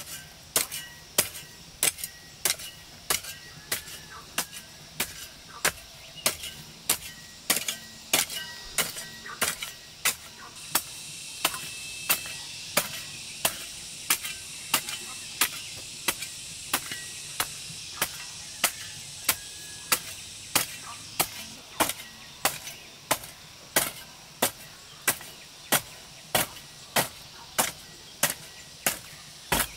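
A garden hoe chopping into dry, loose soil in a steady rhythm, about three strokes every two seconds, each a short dull strike with scattering earth. A steady high hiss comes up behind the strokes about ten seconds in.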